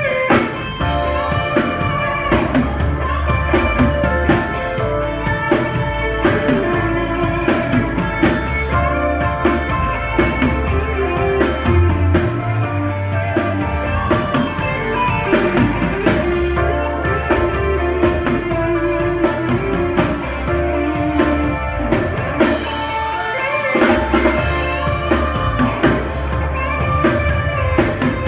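Live band playing: keyboards, electric guitar and drum kit, with low bass notes under a steady drum beat.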